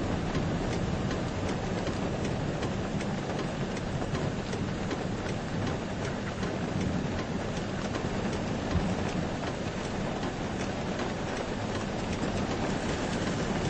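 Rain falling on a river: a steady hiss with a low rumble underneath and faint light ticks throughout.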